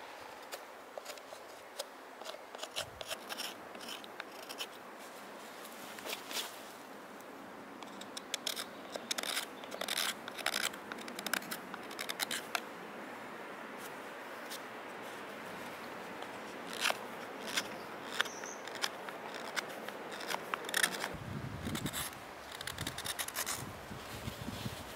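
Carving knife slicing shavings off a birch-wood cup: a series of short crisp cuts coming in quick clusters, with pauses between.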